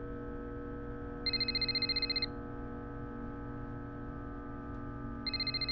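Electronic telephone ringing: two one-second trilling rings, about four seconds apart, over a steady low drone.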